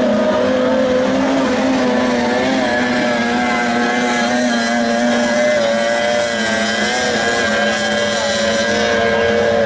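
Outboard engines of 30 hp tunnel racing boats running flat out, a steady engine drone in which more than one engine pitch can be picked out, each wavering slightly as the boats race.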